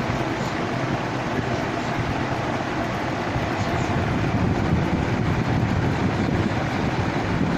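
Old electric fan running, a steady, even noise of motor and moving air that does not change.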